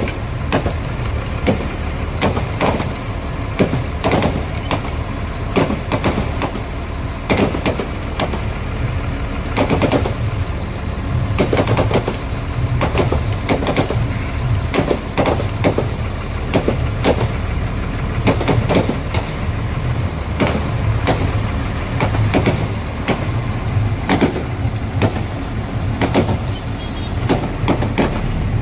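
Kerala temple fireworks (vedikettu) going off in a continuous barrage: aerial shells and crackers bursting in rapid, irregular bangs and crackles over a steady low rumble.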